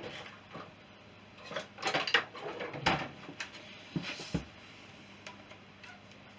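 Metal hand tools clinking and knocking as a screwdriver is picked out from among them: a cluster of clatters about two seconds in, a sharp knock near three seconds and two more knocks around four seconds.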